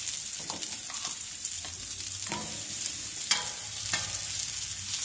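Onion slices and jalapeño halves sizzling steadily in oil on a hot griddle over charcoal. A few sharp clicks of metal tongs on the griddle come partway through.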